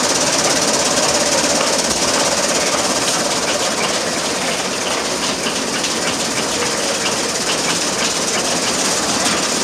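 1920s chaff cutter running under load, chopping hay fed in by hand: a loud, steady mechanical clatter with a continuous hiss and fast rattling ticks.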